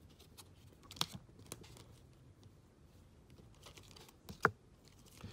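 Plastic-sleeved trading cards and rigid toploaders being handled and shuffled through by hand: scattered light clicks and taps of plastic on plastic, the sharpest about four and a half seconds in.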